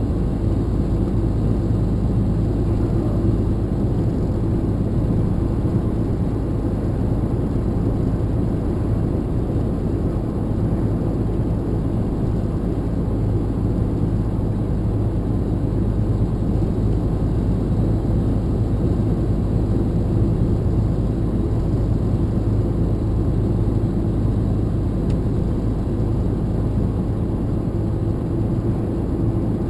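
Steady drone of a lorry's diesel engine and tyre noise heard inside the cab while driving along, with no change in pace.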